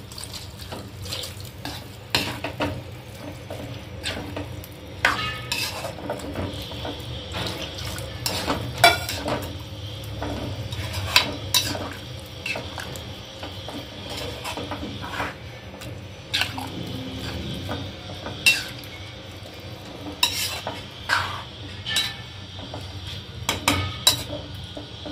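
Steel spoon stirring a wet vegetable bhaji in a metal kadhai, just after water has been added, with irregular clinks and scrapes of the spoon against the pan.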